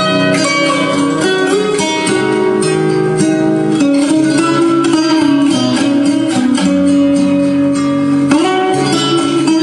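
Guitar music with plucked notes over a sustained bass line, played back through DIY distributed-mode (DML) flat-panel speakers driven by sound exciters.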